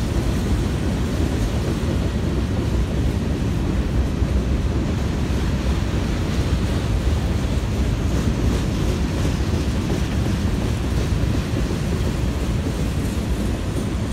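Norfolk Southern freight train of covered hopper cars and container well cars rolling slowly past, a steady low rumble of wheels on rail.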